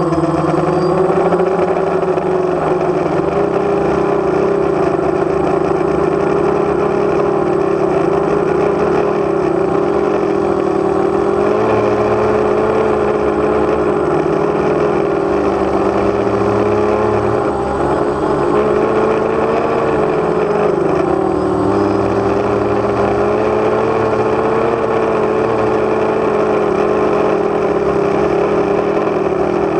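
DJI Phantom quadcopter's electric motors and propellers humming steadily, close up from the camera mounted on the drone, the pitch wavering slightly as it flies.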